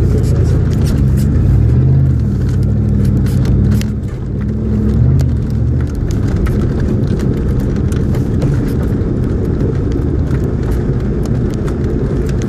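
Motor vehicle engine running while driving. Its pitch rises and falls over the first four seconds, then it settles into a steadier drone.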